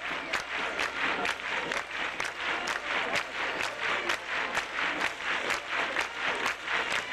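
Large outdoor crowd applauding, clapping together in a steady rhythm of about two and a half claps a second over a general wash of clapping and crowd noise.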